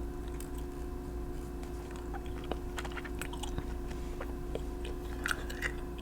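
Scattered soft clicks and crackles close to the microphone, the small handling noises of nail-painting tools and polish, over a steady low electrical hum.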